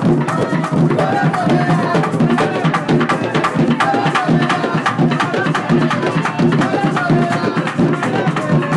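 Background music with drums and percussion keeping a busy, even beat under a melody.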